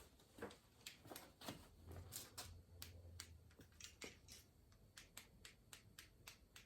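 Faint, irregular small clicks and taps of hands working inside a car door with its trim panel off, a few per second.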